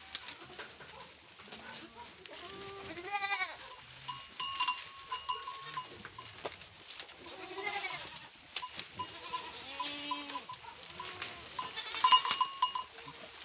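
Goats bleating several times over one another, the loudest cluster near the end, with short rustling and crunching clicks from the animals feeding on cut leaves.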